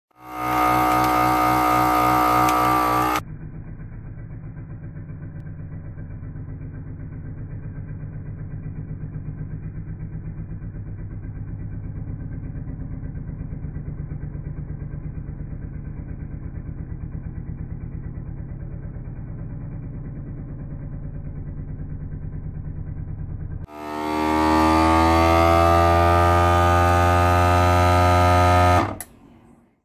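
A FoodSaver vacuum sealer's pump runs, drawing air out of the bag. It starts as a loud whine for about three seconds and drops to a quieter, rapidly pulsing hum for about twenty seconds. Then it comes back loud with its pitch rising and stops suddenly about a second before the end.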